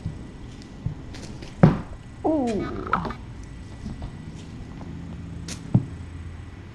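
A kitten pouncing at a feather wand toy and tumbling into a fabric play tent: a few thumps and rustles, the loudest thump about a second and a half in. A short cry falling in pitch follows just after it.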